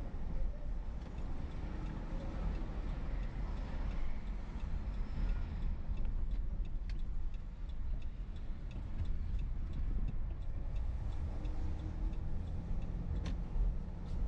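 Steady low road and engine rumble inside a moving car, with a turn-signal indicator ticking evenly about twice a second from about halfway in. A single louder click comes near the end.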